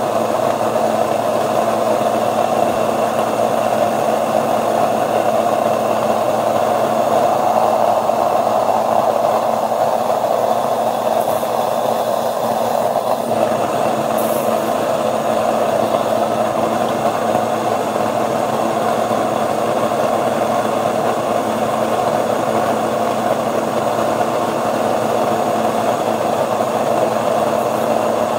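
Ankarsrum stand mixer running steadily under load: its motor turns the bowl while the roller and scraper knead a quadruple batch of stiff wheat dough.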